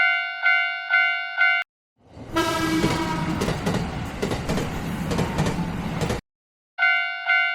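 Railroad crossing warning bell dinging about twice a second, then stopping. After a short gap a train horn sounds and a train rushes past with wheel clatter for about four seconds before cutting off suddenly. Near the end the crossing bell starts dinging again.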